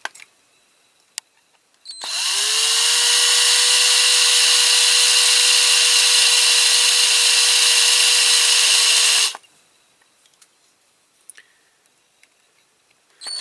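Small electric drill drilling out a rivet on a diecast toy car: it spins up with a rising whine about two seconds in, runs steadily for about seven seconds, then stops suddenly. Faint clicks in the quiet before and after.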